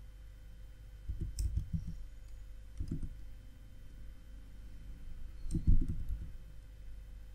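Typing on a computer keyboard in short runs of dull keystrokes: a run about a second in, a couple near three seconds, and another run between five and six seconds in.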